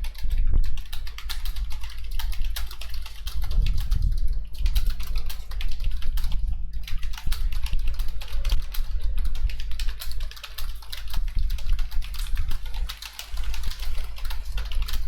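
Fast typing on a computer keyboard, a rapid run of keystrokes, at a speed of about 67 words per minute in an online typing test. There are short pauses about four seconds in and near the end, over a steady low hum.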